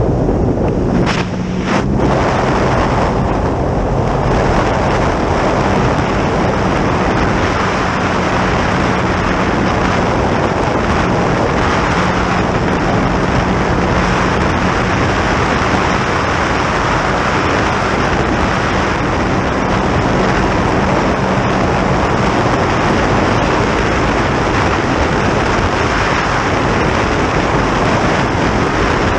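Wind rushing over the microphone and water noise from a boat running at high speed, with the steady drone of its engine underneath.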